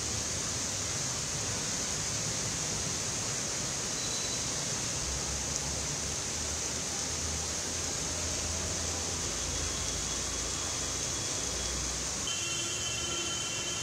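Heavy rain falling steadily, an even hiss, with a low rumble coming and going underneath.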